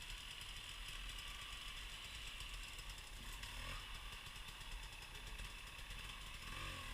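Off-road motorcycle engine running faintly and steadily, with two brief rises in pitch, one about halfway through and one near the end.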